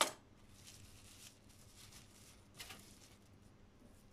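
Faint rustling and crackling of plastic cling film around a rolled cookie-dough log, with a sharp crackle at the start and a second, weaker one about two and a half seconds in.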